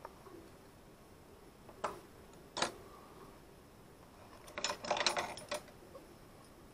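Small plastic and metal sandblasting-gun parts handled on a workbench: two sharp clicks about two seconds in, then a brief clattering rattle of several clicks around five seconds in.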